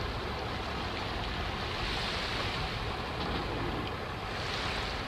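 Steady rushing outdoor background noise with no distinct events, swelling slightly about two seconds in and again near the end.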